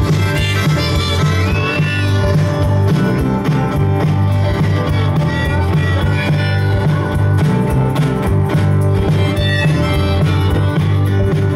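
A live band playing an instrumental passage of the song: strummed acoustic guitar, electric bass, drum kit and keyboard, with a sustained melodic line on top.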